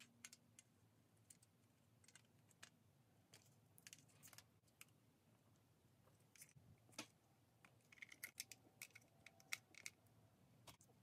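Faint, scattered clicks and scrapes of a die-cast toy car body being pressed and snapped onto its plastic chassis, coming more often in the second half. The parts are a tight fit.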